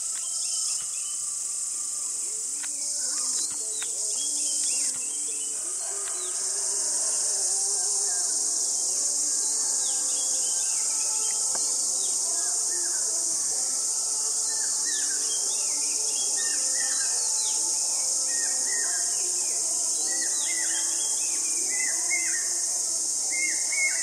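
Natural woodland ambience: a steady, high-pitched insect drone runs throughout. Over it, many short bird chirps and calls come and go, with soft low notes repeating beneath.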